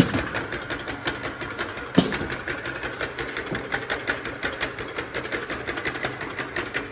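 Round-bottle clamp labeling machine running, its conveyor and rollers spinning a clamped bottle, with a rapid, even clicking rattle and one sharper click about two seconds in.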